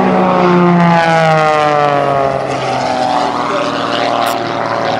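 Oracle Challenger III aerobatic biplane's piston engine and propeller running at high power on a low pass. The pitch drops steadily over about two seconds as it goes by.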